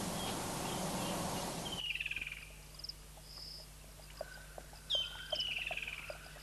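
Steady rushing outdoor background noise, which cuts off abruptly. Then wild birds call: a descending, rapidly chattering call twice, with short high whistles between.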